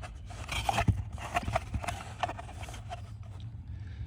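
Handling noises: irregular scraping and light clicks as a box is got out and handled, over a steady low hum.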